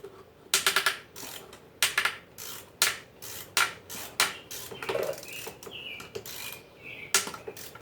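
Drill driver trying to back out a stuck Torx screw, making short runs of sharp ratcheting clicks with a brief motor whine about five seconds in; the screw is still too tight to turn.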